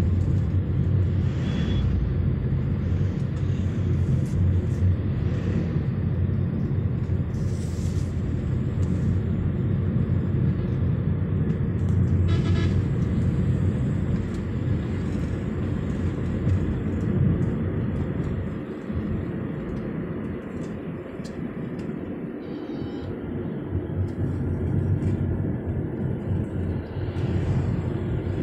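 Road and engine noise inside a moving car's cabin: a steady low rumble that drops somewhat for several seconds from about two-thirds of the way through.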